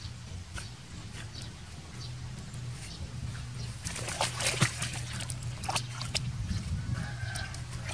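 A dog splashing and sloshing in shallow pond water, with a cluster of splashes about halfway through.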